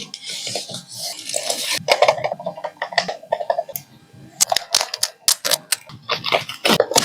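Unboxing handling sounds: packaging rustling for the first couple of seconds, then a run of sharp clicks and taps as the box and tablet are handled.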